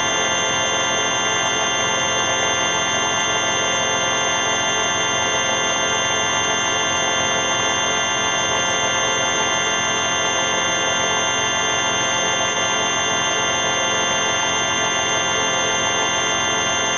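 Digitally processed '4ormulator V5' sound effect: a steady, buzzing electronic drone made of many held tones stacked into one dense chord. Its level does not change, and the middle tones wobble slowly and evenly every couple of seconds.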